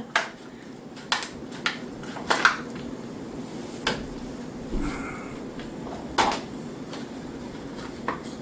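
Irregular sharp clinks and knocks, about seven of them, as drain parts and tools are handled and set down during a kitchen sink drain repair.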